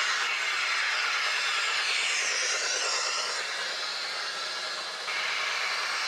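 OO gauge model train running past: a steady hissing rush from the wheels on the track and the locomotive's DCC sound. The sound drops slightly, then jumps back up abruptly about five seconds in.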